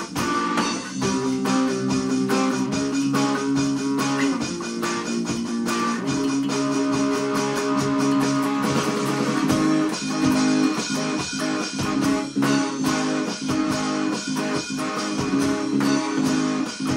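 Multitracked home-recorded rock band cover, guitars to the fore over bass, playing continuously.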